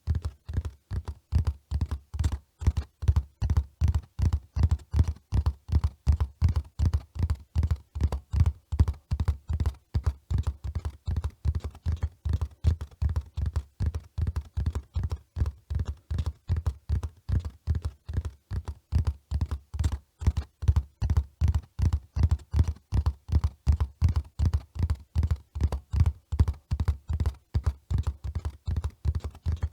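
Horse's hooves at a run: a fast, even rhythm of low thuds, several a second.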